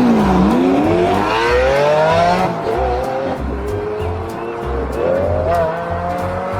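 Race car engine revving. The pitch dips at first, then climbs steadily for about two seconds and levels off, and it revs up again about five seconds in. Background music with a steady beat plays underneath.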